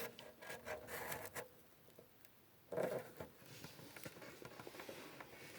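Faint rubbing and clicking of objects being handled, with one louder scrape about three seconds in.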